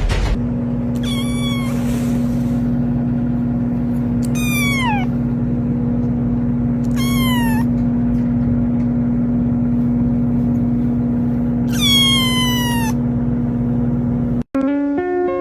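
A cat meowing four times, each meow about a second long and sliding down in pitch, over a steady low hum that cuts off suddenly near the end.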